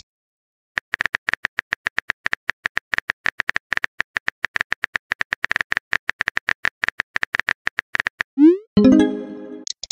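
Chat-app sound effects: rapid, irregular typing clicks for about seven seconds, then a rising swoop and a short fading tone, the pop of a new message arriving.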